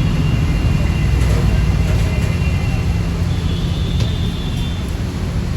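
Street traffic: a steady low engine rumble, with faint high steady tones above it.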